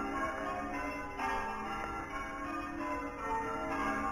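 Church bells ringing, stroke after stroke, their tones overlapping and hanging in the air.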